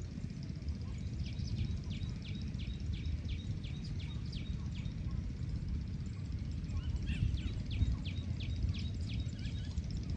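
A bird calling in two runs of quick, repeated downward chirps, about three to four a second, the second run starting about seven seconds in. Under it runs a steady low rumble of wind on the microphone.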